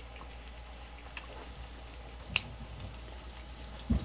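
Battered bacon strips frying in shallow oil in a skillet: a faint sizzle with scattered small pops and one sharper pop, over a steady low hum. A dull knock near the end.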